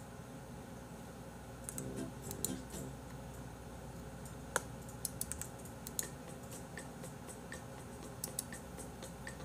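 Faint, irregular clicks and taps of a computer keyboard and mouse over quiet room tone.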